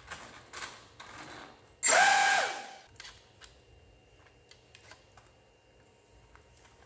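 A ducted-fan motor runs briefly at about two seconds in, a loud whine with rushing air that falls in pitch as it spins down within a second. Light clicks and knocks of handling come before it, and faint ticks after.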